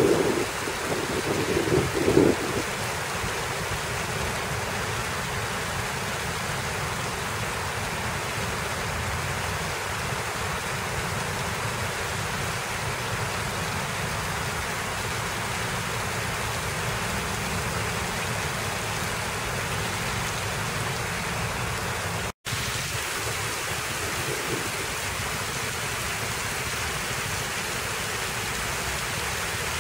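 Fountain jets and rain splashing down into the fountain's basin: a steady, even rush of falling water. A few low rumbling bumps sound in the first couple of seconds, and the sound cuts out for an instant about two-thirds of the way through.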